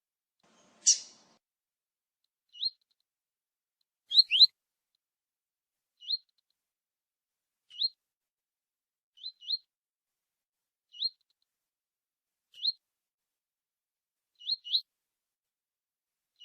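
A small bird giving short, high, upward-sliding chirps about every one and a half seconds, some in quick pairs. A louder, rougher sound comes about a second in.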